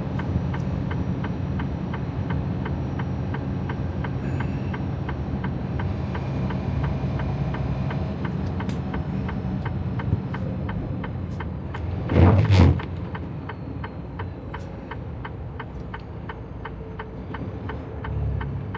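Inside the cab of a Freightliner Cascadia semi truck: the diesel engine runs at low speed with a steady low drone under an even ticking of about three ticks a second. A single brief loud thump comes about two-thirds of the way in.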